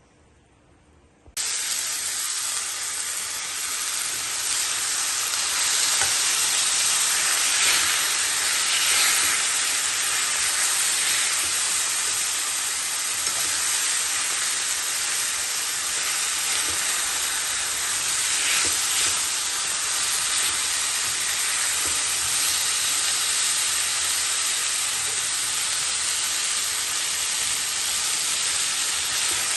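Curried chicken sizzling in hot oil in a pot: a steady, loud sizzle that starts abruptly about a second and a half in.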